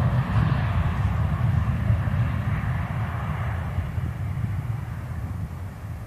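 Jet aircraft engine noise on the runway, a broad rush that fades steadily as the aircraft moves away, with low wind rumble on the microphone.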